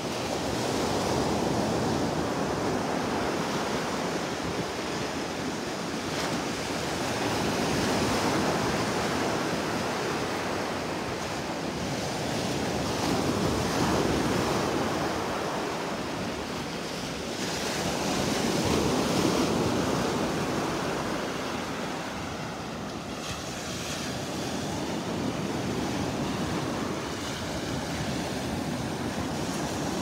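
Gulf of Mexico surf breaking on a sandy beach, the wash swelling and fading about every five to six seconds.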